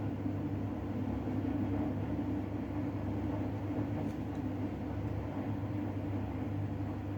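Steady low mechanical hum, running evenly without change.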